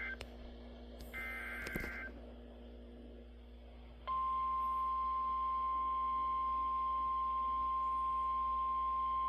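NOAA Weather Radio alert through a weather radio receiver: the end of one burst of warbling two-pitch SAME data-header tones, then another about a second in. About four seconds in, a steady single-pitch warning alarm tone starts and holds, signalling that a warning (here a severe thunderstorm warning) is about to be read.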